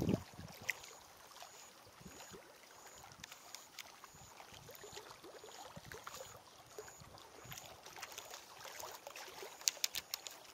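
Small waves lapping against a fishing boat's hull, with a few light clicks near the end.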